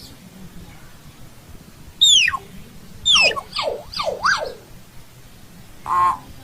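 Common hill myna calling: a loud falling whistle about two seconds in, then a quick run of falling and rising whistles, and a short harsh call near the end.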